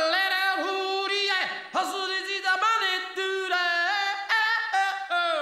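A cartoon robin's voice singing a wordless, warbling imitation of a bird's song, in many short notes that slide up and down in pitch.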